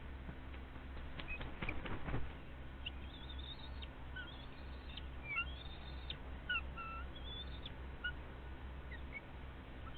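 Bald eagle giving thin, high whistled calls, short notes and glides, from about three seconds in. A burst of sharp knocks and clicks comes before them, about one to two seconds in.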